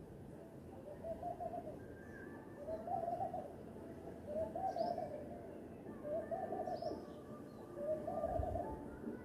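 A bird repeating a low, quavering call five times, each just under a second long and coming about every one and a half seconds. Another bird gives a few brief, faint high chirps.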